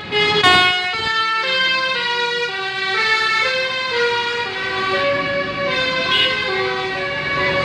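Bus telolet 'basuri' multi-tone horn playing a melody, its pitched notes stepping up and down every quarter to half second.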